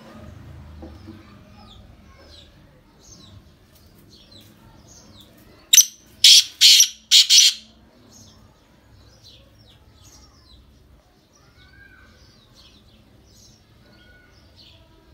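Caged black francolin calling: a quick run of four loud, harsh, grating notes about six seconds in, over steady high chirping of small birds.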